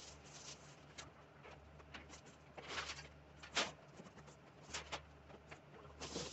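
Cardboard boxes, packaging and construction scraps rustling and clattering as they are handled and tossed out of a pickup bed, in irregular knocks, the sharpest about three and a half seconds in.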